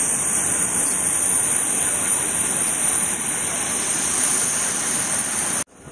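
Steady loud rushing roar with a high-pitched whine on top: turbine noise around a jet airliner on the apron at the boarding stairs. It cuts off abruptly near the end.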